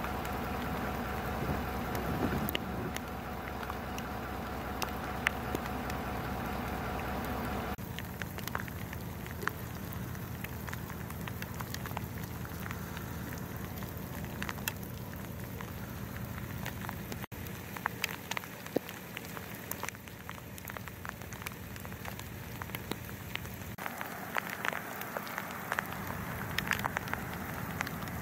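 Freezing rain falling on ice-glazed brush and grass: a steady patter dotted with many small sharp ticks of drops striking iced twigs. A steady low hum runs beneath it for the first eight seconds or so, then stops.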